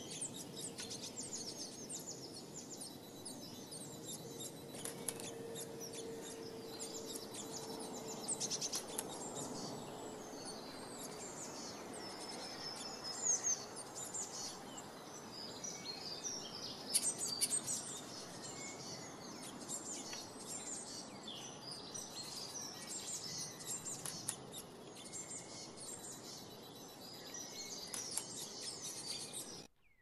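Small songbirds chirping and twittering in quick high-pitched notes throughout, over a steady low background noise of outdoor ambience. The sound cuts off suddenly near the end.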